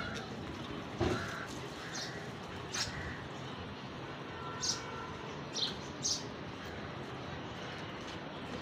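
Birds calling outdoors: short, separate calls scattered through, several of them high-pitched, over a steady background noise.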